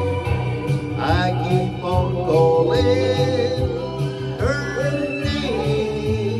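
Man singing a slow country song with acoustic guitar accompaniment and a steady beat.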